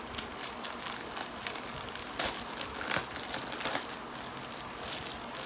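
Plastic packaging crinkling as an item is unwrapped and handled, with irregular crackles, a few louder ones in the middle.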